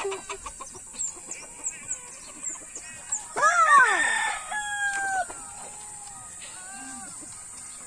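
Gamecock crowing once, a long crow of about two seconds starting a little past three seconds in and ending on a held note. Scattered clucks come before it.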